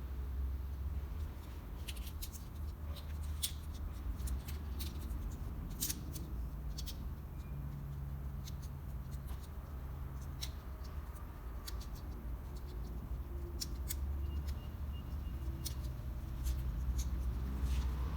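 Scattered sharp light clicks and snips of hand tools working on the camshaft sensor wiring, over a steady low rumble.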